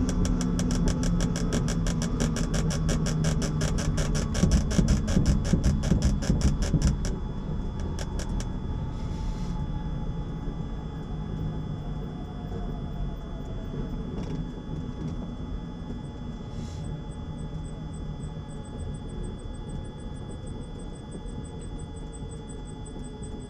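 Helicopter turbine and rotor running, with a rapid, regular rotor beat for about the first seven seconds. The beat then stops, leaving a lower engine hum that slowly drops in pitch and fades.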